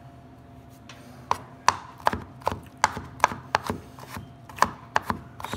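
Chef's knife rough-chopping garlic cloves on a wooden cutting board: a steady run of sharp knife strikes, about three a second, starting a little over a second in.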